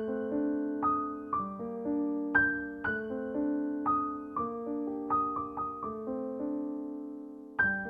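Background piano music: single notes and chords struck a few times a second, each ringing and dying away.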